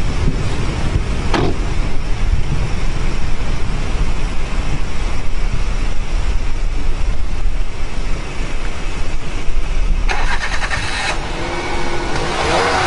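Loud, steady low rumble from the erupting volcano and its billowing ash cloud, with wind buffeting the microphone. About ten seconds in, a brief hiss lasts about a second.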